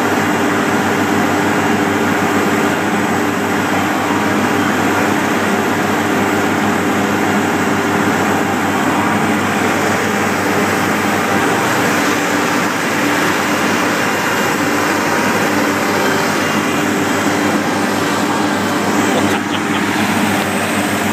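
Asphalt paver's diesel engine running steadily at a constant speed, heard from on board the machine.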